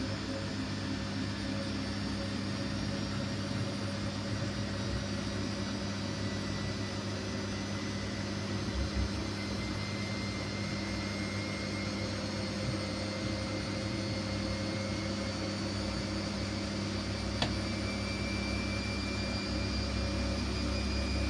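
Siemens Siwamat iQ 716 washing machine running with a steady whir and hum, its high motor whine rising slowly in pitch; a single sharp click about seventeen seconds in.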